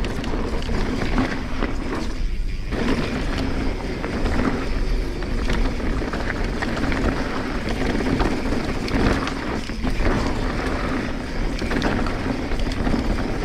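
Wind rushing over the microphone and trail noise from a Transition Sentinel full-suspension mountain bike being ridden, with frequent knocks and rattles over rough ground.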